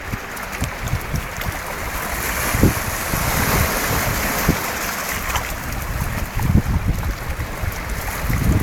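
Wind blowing over the microphone on top of small sea waves washing among shoreline rocks: a steady rushing hiss that grows louder over the first few seconds, with irregular low buffeting from the wind.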